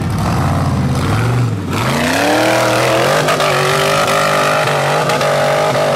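Rock bouncer buggy's LS V8 engine revved hard at full throttle, climbing a steep dirt hill. The engine note rises sharply about two seconds in and holds high.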